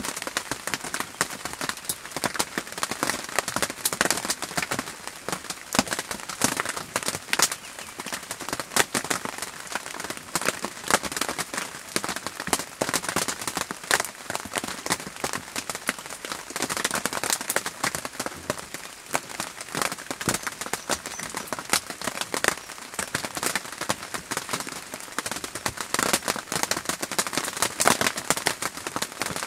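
Steady rain falling, heard as a dense, irregular patter of individual drops ticking close by.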